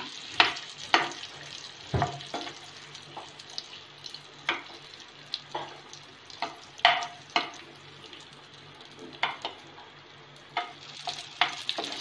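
A metal spatula scraping and tapping against a nonstick frying pan as cashews and raisins are stirred in hot ghee, in irregular strokes a second or so apart, over a faint sizzle. A low steady hum runs underneath.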